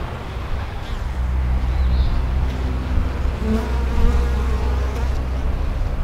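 Honey bees buzzing at the hive entrance, with single bees droning briefly past close by over a steady low hum.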